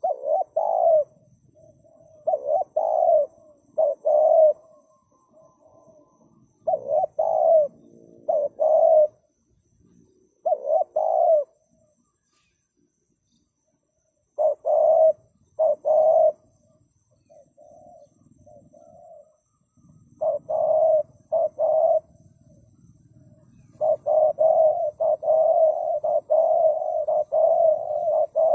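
Spotted dove cooing: groups of two or three deep coos with short pauses between them, and a few seconds of silence about halfway. Near the end the coos come thick and fast, almost without a break.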